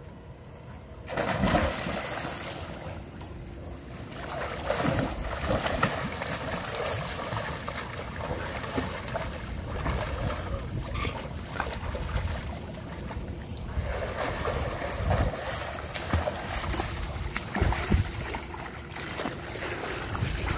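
A swimmer jumping into a swimming pool, with a loud splash about a second in, followed by continuous irregular splashing of swimming strokes in the water.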